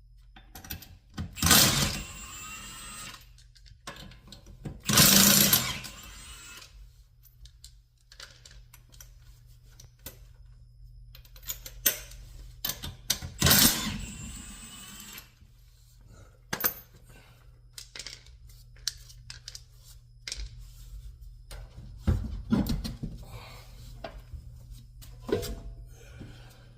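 Tools and wheel hardware being handled during a car wheel removal: scattered metal clicks and knocks, with three louder noisy bursts, each about a second long, near the start, about five seconds in and in the middle.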